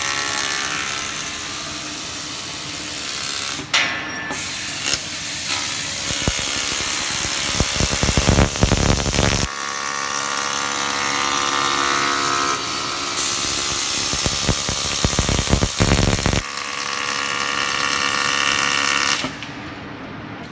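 YAG laser cutting machine cutting copper sheet: a loud, steady hiss from the cutting head's gas jet and the cut, over a steady machine hum, with two patches of low rumbling along the way. The hiss cuts off suddenly near the end as the cut stops.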